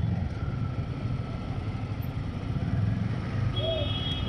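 Low, steady rumble of riding a motorcycle through busy city traffic: engine and road noise. A high steady tone joins near the end.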